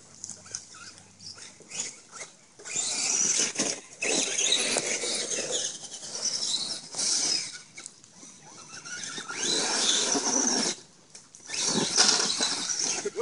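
Axial Wraith RC rock crawler's electric motor and geared drivetrain whining under throttle in several bursts of a few seconds, with tires scrabbling on rock and wet ground as it climbs. A rubbing noise runs with it that the driver cannot place at the front or the rear.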